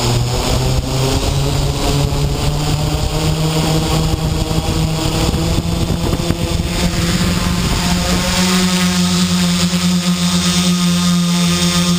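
Quadcopter's electric motors and propellers spinning up, a hum that rises in pitch while the craft sits on the grass, then settles to a steady, stronger pitch about two-thirds of the way in as it lifts off and hovers.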